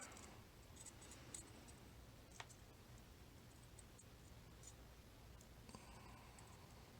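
Near silence with a few faint, sharp clicks of small metal lock parts being handled, the clearest about two and a half seconds in, as a sidebar is worked out of a high-security lock core.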